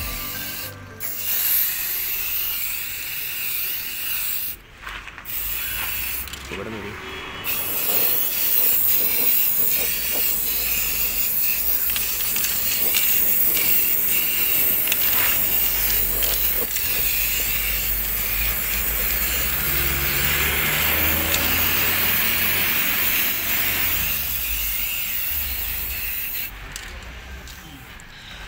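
Aerosol spray paint can hissing in long bursts, with a few brief breaks in the first several seconds and again near the end.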